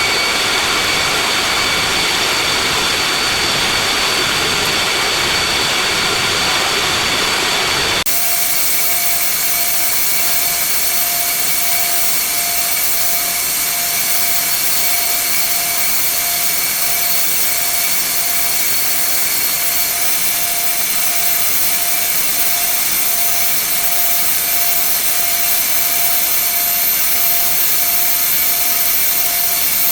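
Loud, steady mechanical drone with a constant hiss and several steady tones. About eight seconds in it changes abruptly to a thinner sound carrying a faint pulsing tone.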